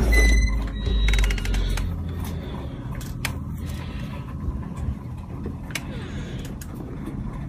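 A storm door being pushed open, with creaks and a quick run of clicks from its hinges and closer, over a low rumble that is loudest at the start. A few more sharp clicks follow.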